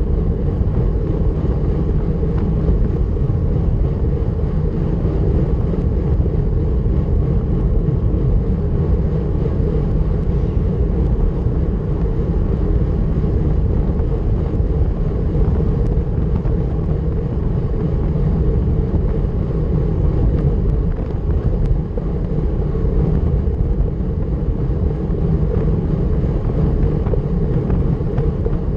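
Steady, low rush of wind on the microphone of a bicycle ridden at time-trial speed, around 40 km/h.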